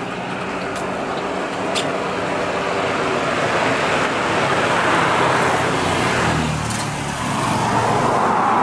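Airbus A320's twin CFM56 turbofan engines on final approach: a steady jet roar and hum that grows louder as the airliner closes in, with a brief dip near the end.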